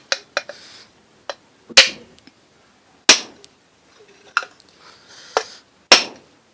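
Hammer blows on screws threaded into a ceiling fan's round cover plate, knocking the plate loose from the motor body: three heavy, ringing metal strikes with lighter taps between them.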